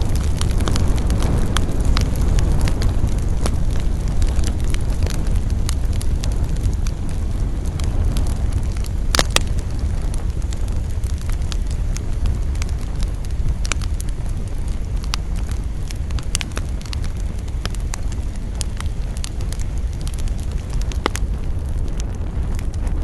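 Campfire crackling and popping over a steady low rumble, with one louder cluster of pops about nine seconds in.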